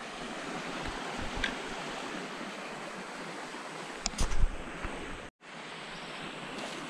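Steady rush of a swollen river flowing past. A few knocks, like handling of the camera or gear, come about four seconds in, and the sound cuts out for an instant just after five seconds.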